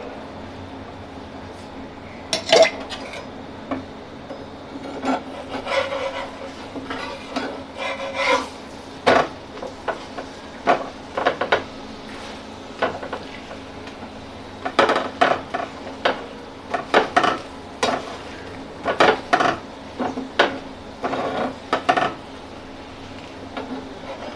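Flat steel spatula scraping and knocking against an iron tawa in short, irregular strokes as a paratha fried in ghee is pressed and turned, with a faint sizzle and a low steady hum underneath.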